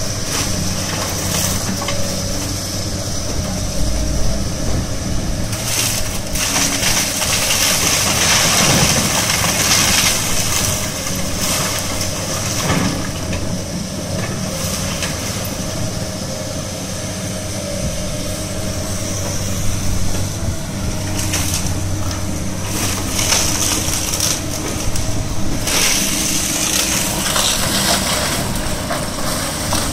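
Tracked excavator's diesel engine running steadily as its bucket tears into a brick and concrete-block building. Masonry and debris crash and clatter down again and again.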